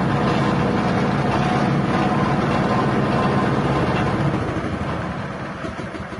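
Small 6.5 HP petrol engine driving a grass chopper, running steadily, then fading away over the last two seconds.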